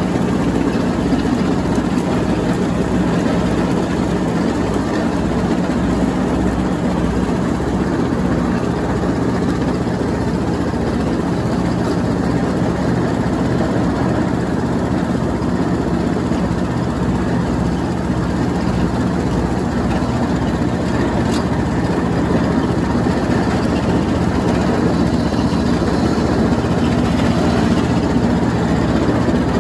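Troy-Bilt Bronco riding lawnmower's engine running steadily at constant speed while mowing and shredding leaves.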